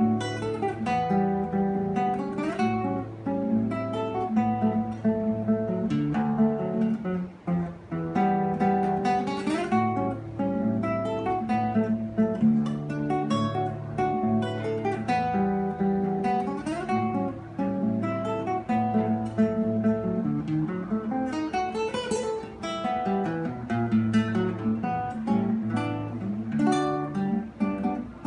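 Acoustic guitar playing a choro fingerstyle, with plucked bass notes moving under a melody line.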